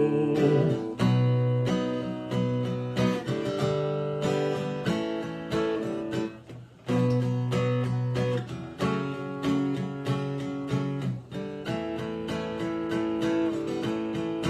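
Acoustic guitar strummed in a steady rhythm, chords ringing, as an instrumental break in a worship song; the strumming drops off briefly about halfway through.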